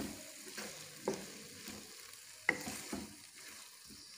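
A spatula stirring and scraping macaroni, chicken and capsicum around a nonstick wok over a faint sizzle, with a few separate scrapes and a sharper tap about two and a half seconds in.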